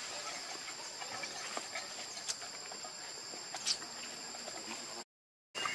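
Quiet outdoor ambience: a steady high-pitched insect drone with a few faint ticks and rustles. It drops to dead silence for about half a second near the end, where the audio cuts.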